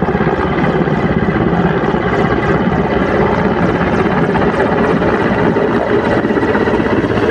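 Mil Mi-17 transport helicopter descending on its landing approach, its rotor beating loud and steady in a fast, even chop.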